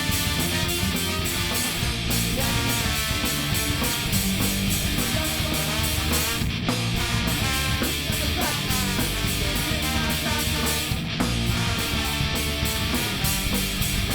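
Loud rock band playing with distorted guitar and a steady pounding drum beat.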